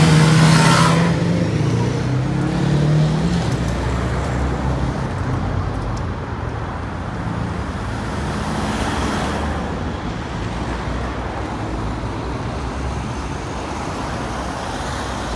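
A sports motorcycle's engine revs and pulls away across the crossing, loudest in the first few seconds. Steady road traffic noise from cars moving off follows.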